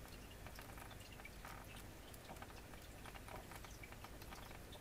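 Paperback book pages flicked through one after another by thumb: quiet, irregular paper flicks and rustles over a low steady hum.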